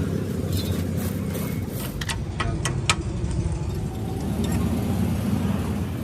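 A vehicle engine running with a steady low rumble. A quick run of about five sharp clicks comes a little over two seconds in.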